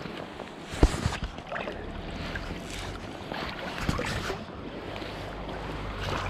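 River current rushing and lapping close to the microphone, which sits at the water surface. A sharp knock about a second in is the loudest moment, and a few lighter knocks follow.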